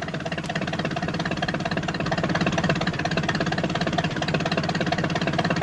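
Small van engine running steadily with a fast, even chug.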